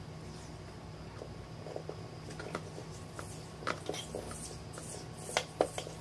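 Black PVC electrical insulating tape being wrapped around twisted wire joints: a scatter of small crackles and ticks from the tape and the handled wires, growing busier near the end, over a low steady hum.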